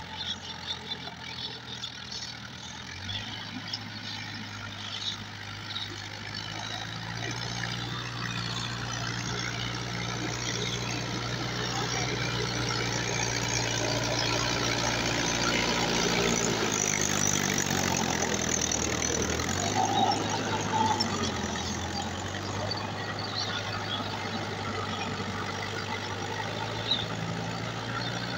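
Diesel tractor engine running steadily under load as it pulls a rotary tiller through soil. It grows louder toward the middle, its pitch dropping as it passes, then eases off slightly.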